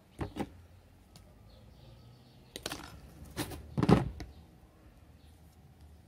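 A few clicks and knocks as bonsai wire and a wire cutter are handled on a plastic tabletop, the loudest a knock about four seconds in.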